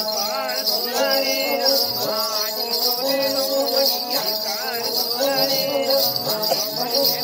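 Folk music: a wavering melody over steady jingling of bells.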